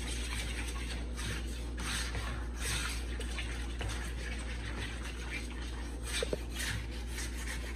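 A spoon stirring a thin, milky gravy mixture in a plastic bowl: soft, irregular sloshing and scraping strokes.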